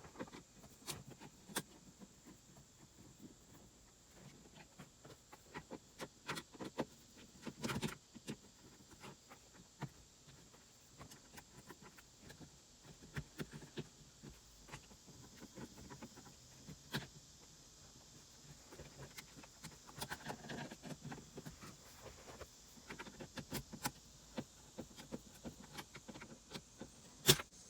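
Faint, scattered clicks and small knocks of a Phillips screwdriver working screws out of plastic dashboard trim around a car radio, with a few louder knocks along the way.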